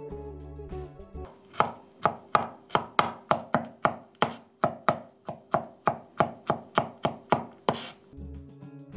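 Garlic cloves being chopped with a wide-bladed knife on a wooden cutting board: a quick, even run of knife strikes, about three to four a second. The strikes start a little over a second in and stop shortly before the end, with background music around them.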